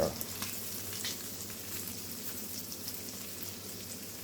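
Fish and shrimp frying in hot sunflower oil: a steady sizzle with scattered small crackles.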